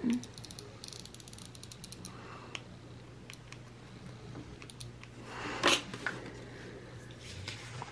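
A quick run of fine clicks, then scattered light clicks and a brief scratchy rustle about five and a half seconds in: small stationery supplies handled on a desk while a planner page is being worked on.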